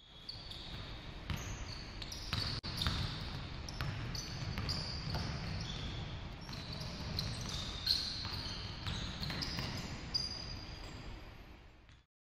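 Basketball game on a hardwood gym court: a ball bouncing in repeated knocks and sneakers squeaking in many short high chirps, over a steady low rumble from the hall.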